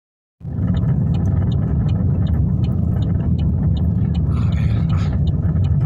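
Steady low rumble of a car driving, heard from inside the cabin, with a light regular ticking about three times a second.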